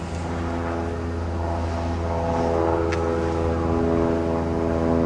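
A light aircraft's piston engine and propeller running with a steady drone that grows a little louder, then cuts off suddenly at the end.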